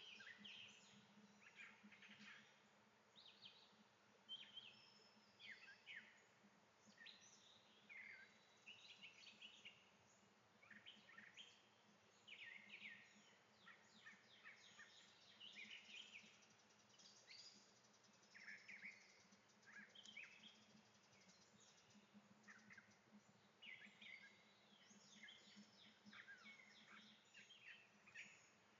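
Faint chorus of songbirds: many short chirps and trills from several birds, overlapping throughout, over a low steady hum.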